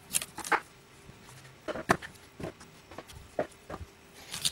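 Kitchen knife cutting peeled fresh cassava roots lengthwise on a cutting board: scattered irregular cuts and taps of the blade on the board, the sharpest a little before two seconds in and several more near the end.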